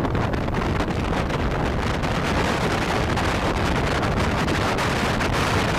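Wind rushing and buffeting the microphone aboard a rigid inflatable boat under way, with the rush of the boat through the water beneath it.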